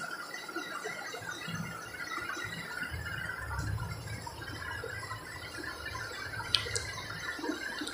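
Marker pen writing on chart paper fixed to a wall: faint, irregular squeaks and scratches of the pen strokes over quiet room tone, with a couple of short ticks near the end.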